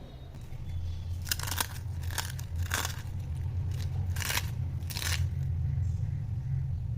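Crisp fried chakli crunching, about six sharp crunches spaced irregularly over a steady low hum.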